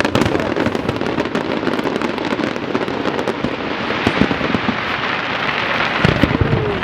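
Aerial fireworks crackling, with many small bursts in quick succession making a dense, continuous crackle dotted with sharp pops. The crackle swells about four seconds in.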